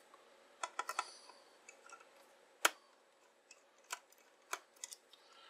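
Faint, scattered clicks and taps of a small screwdriver working the case screws of an analog multimeter, with one sharper click about two and a half seconds in.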